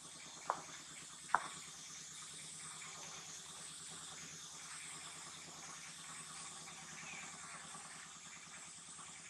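Faint steady high-pitched outdoor hiss that slowly swells and fades, with two short sharp clicks a little under a second apart near the start.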